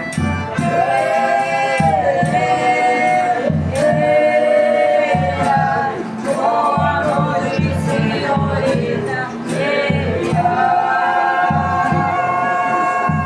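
Folia group of men singing together in long, drawn-out lines, with a steady percussion beat underneath.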